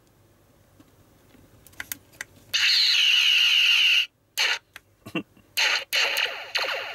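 A few faint plastic clicks from a toy model being handled. From about two and a half seconds in comes a loud electronic sound that cuts off suddenly, followed by short electronic bursts and a busier stretch near the end.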